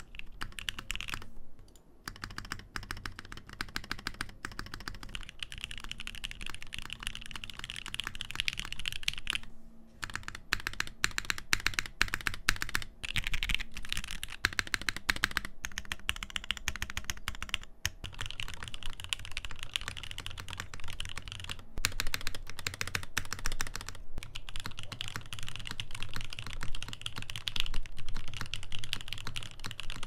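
Continuous fast typing on a KBDfans Taco75 mechanical keyboard with lubed-and-filmed Gateron Uhmknown switches in an aluminum plate and no foam, a quick run of key clacks with a few brief pauses. The keyboard is in its silicone bowl-mount setup, first with PBT Cookies n Cream keycaps and then with GMK Minimal keycaps and the bowl by the spacebar removed; in the bowl mount the spacebar sounds weaker than in top mount.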